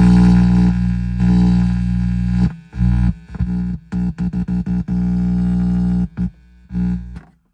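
Loud mains hum and buzz from a home-built Fender 5E3 Tweed Deluxe tube amp's 12-inch speaker. It is picked up through a guitar cable on the input with nothing played and the volume at one. From about two and a half seconds in it cuts in and out rapidly as the contact comes and goes, then stops shortly before the end.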